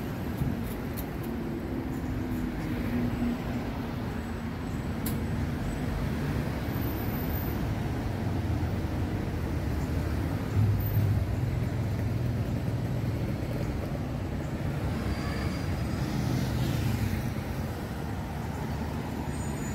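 City street traffic: the engines of cars passing on an avenue make a steady low rumble, swelling as vehicles go by, loudest about halfway through.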